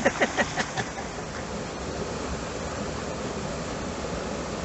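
Small waterfall and rocky creek rushing in a steady, even hiss. A man's voice is heard briefly in the first second.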